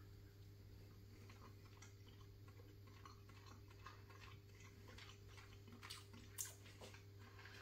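Near silence: a steady low hum under faint, scattered small clicks of someone eating with a fork, with one sharper click about six and a half seconds in.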